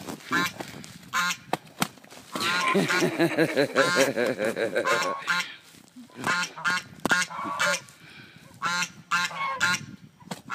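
A white domestic goose honking in short repeated calls, with a long rapid run of calls from about two to five seconds in.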